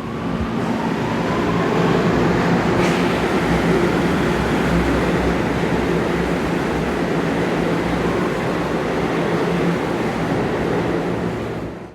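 New York City Subway R160 train running through the station: steady wheel and rail noise, with a rising motor whine over the first couple of seconds and a brief sharp click about three seconds in.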